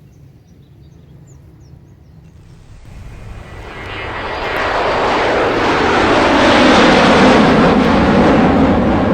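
A vehicle passing close: a loud, rushing engine-and-air noise swells over about four seconds and is still near its peak at the end. A few faint bird chirps come before it builds.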